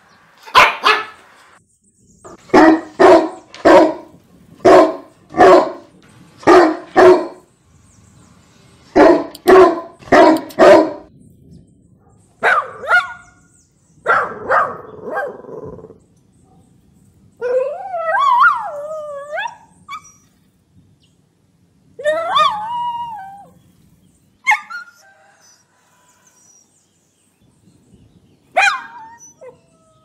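Dogs barking angrily: sharp barks come in quick runs of four to nine through the first half, followed by fewer, longer wavering cries that glide up and down in pitch, with short pauses between them.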